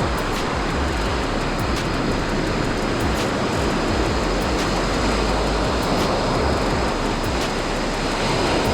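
Steady rush of surf on a beach, with wind buffeting the microphone in uneven low rumbles.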